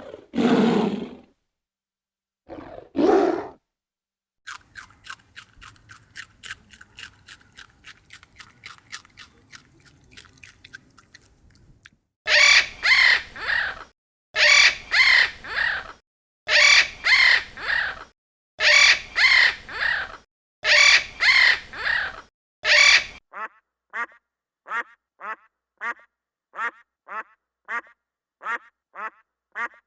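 A sequence of animal calls. Two low roar-like calls come in the first few seconds, then a fast run of short clicking notes, then loud calls in groups of three, and from about two-thirds of the way in, ducks quacking in quick short calls about two a second.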